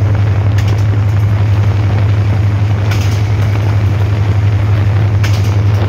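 Meter-gauge diesel locomotive running along the track: a loud, steady low engine drone under running noise, with a few brief sharp clicks about every two and a half seconds.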